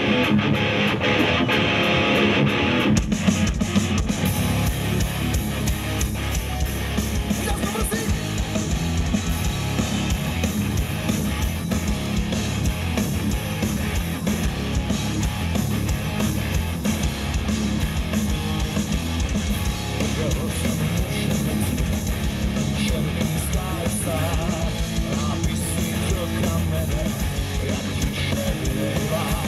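Live rock band played loud through a PA: distorted electric guitars, bass and drums, with a singer. A held chord rings for the first few seconds, then the full band with drums comes in about three seconds in and plays on steadily.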